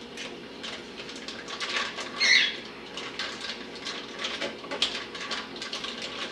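Plastic bag crinkling and rustling in a run of irregular crackles, with one louder crackle a little over two seconds in, as a brined raw chicken is worked out of a small plastic bag in a sink.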